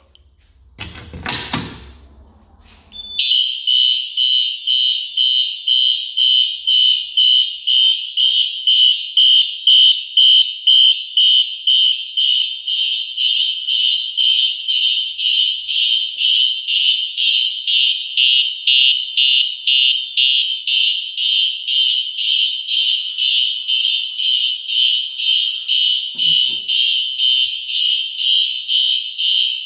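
Fire alarm horn strobes, a Wheelock NS4 and a Simplex TrueAlert on high volume, sounding in march-time code: a loud, high-pitched horn tone pulsing about twice a second. It starts about three seconds in, after a few sharp clicks.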